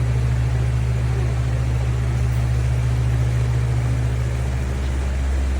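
Comfort Zone 16-inch wall-mount fan running steadily, a loud, even low hum and rush of air.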